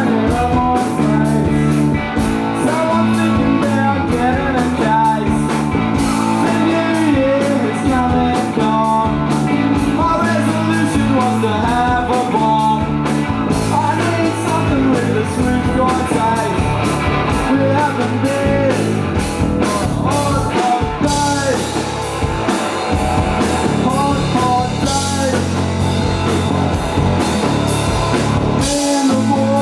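A live rock band playing at full volume: guitars and drum kit driving a steady beat, with a sung vocal line.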